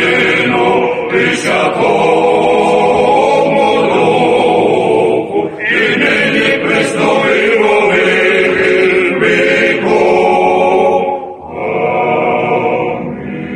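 Men's choir singing a liturgical hymn a cappella, several voices in harmony. About eleven seconds in there is a short break between phrases, and the singing then goes on more softly.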